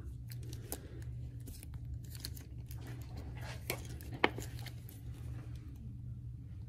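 Faint scattered clicks and light rustling of metal tissue forceps and gloved fingers handling a skin biopsy specimen on a gauze square, with a sharper click about four seconds in, over a steady low hum.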